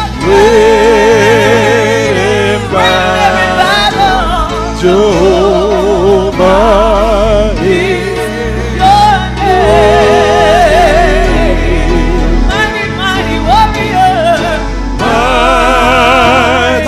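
Women singing a gospel praise song into microphones, long held notes with a strong vibrato, over an accompaniment with low sustained bass notes.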